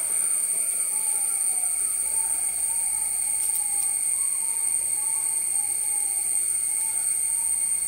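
Steady, high-pitched insect drone, unbroken and even, with a faint wavering sound underneath.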